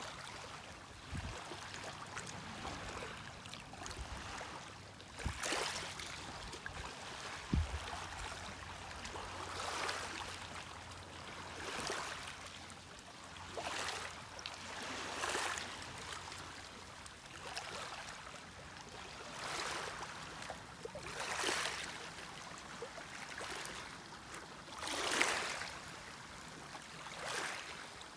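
Small waves lapping at the water's edge, coming in repeated washes every second or two, with a few low bumps in the first eight seconds.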